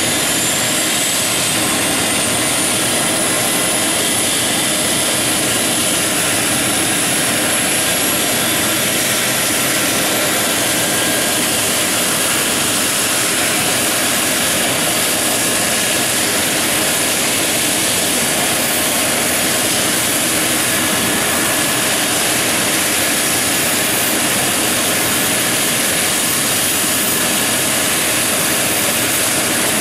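Eurocopter EC135 helicopter's twin turbine engines and rotor running loud and steady, with a high turbine whine that rises over the first dozen seconds and then holds level as the engines spool up.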